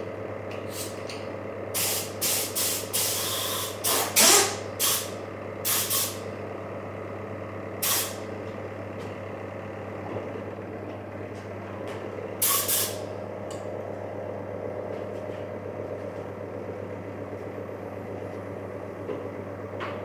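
Short hisses of compressed air from a spray gun being triggered: a quick run of about eight starting about two seconds in, then two single ones later, over a steady motor hum.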